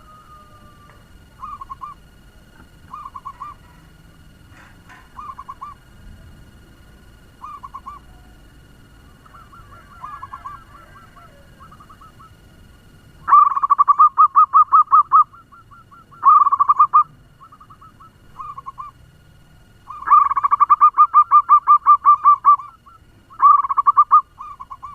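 Zebra dove (perkutut) cooing in its fast staccato phrases: short, quieter runs of rapid notes at first, then from about halfway loud, longer trains of quick repeated coos, several in a row.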